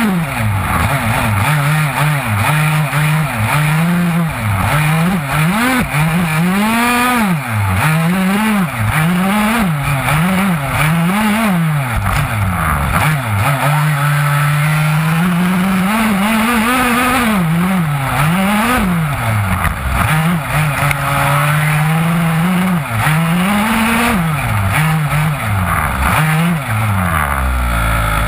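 The two-stroke engine of an HPI Baja 5B gas RC buggy, heard close from the car itself. It revs up and down about once a second under hard driving on gravel, and twice holds steady revs for a few seconds. It drops to idle near the end.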